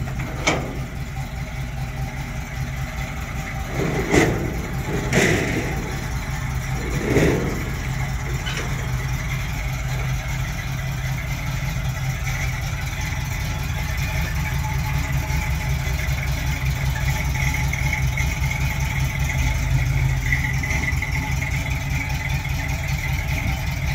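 The 1957 Galileo Special's engine running steadily at idle as the car creeps along, with a few short knocks about four to seven seconds in.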